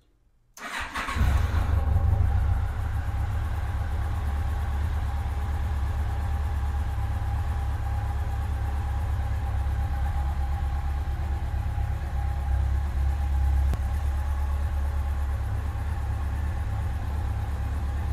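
A Yamaha FJR1300's inline-four engine cranks on the starter about half a second in, catches, runs a little louder for the first second or so, then settles into a steady idle. This is the first start after an oil and filter change, run long enough to fill the new oil filter.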